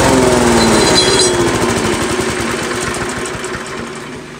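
Belt-driven grass chopper and its small engine winding down: the engine's pitch falls steadily and dies out about two seconds in, and the whole sound fades as the machine spins down.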